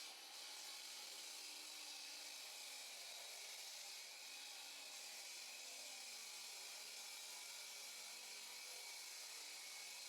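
Power saw cutting a concrete slab: a steady, high-pitched grinding noise without a break.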